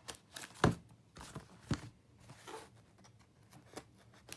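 A shipping package being handled and opened by hand: a string of short knocks and rustles, the loudest about two-thirds of a second in and another just before the two-second mark.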